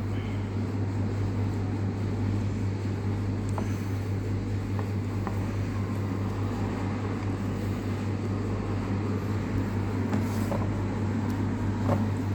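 A steady low mechanical hum, even throughout, with a few faint clicks.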